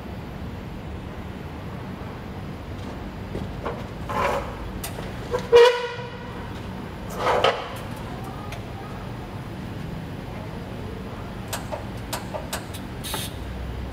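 Metal stool legs scraping and squeaking on a concrete floor, three short drags a couple of seconds apart, over a steady low hum. Near the end come a few light knocks.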